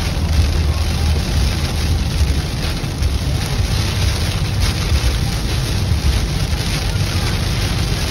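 Steady, loud noise inside a car driving on a highway through a heavy rainstorm: tyres hissing on the wet road and rain hitting the windshield and roof, over a strong low rumble from the car.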